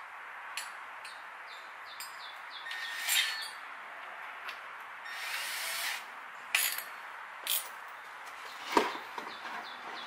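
Small clicks and rattles of a Milwaukee M12 cordless drill being handled as a bit is fitted in its chuck, with a brief hiss about five seconds in and a sharp knock, the loudest sound, near the end. Small birds chirp in the background.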